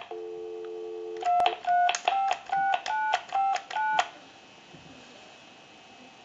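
Dial tone on a repaired Mickey Mouse novelty telephone's line, then the phone's touch-tone keypad dialing about seven digits in quick beeps. After that, only a faint line hiss.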